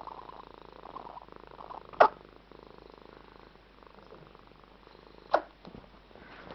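Domestic cat purring steadily, close up. Two short, sharp knocks stand out, one about two seconds in and one about five and a half seconds in.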